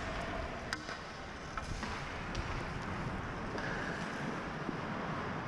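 Hockey skate blades gliding and scraping on rink ice, heard close from a body-worn camera, as a steady rushing noise with low rumble. A few faint sharp clicks come through, about a second in and again near two seconds.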